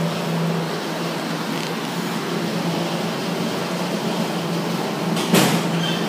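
A steady low mechanical hum with a constant hiss, and a sharp knock about five seconds in.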